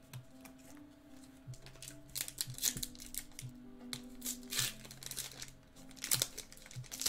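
Foil wrapper of a Topps Chrome baseball card pack being torn open and crinkled by hand, in irregular crackly bursts that are strongest in the second half. Soft background music with held notes plays underneath.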